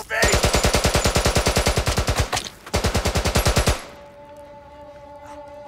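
Automatic gunfire from a belt-fed machine gun: one long burst of about two seconds, a short pause, then a second burst of about a second. Held music tones come in near the end.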